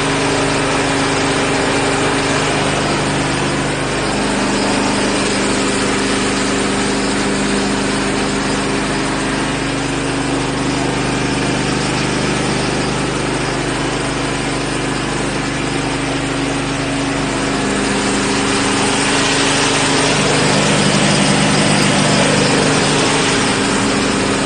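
Steady machine-like drone with several held low tones and a noisy hiss over it, swelling slightly near the end.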